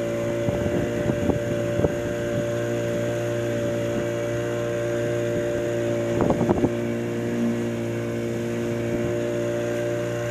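Boat motor running at a steady drone. A few short knocks come in clusters near the start and again about six seconds in.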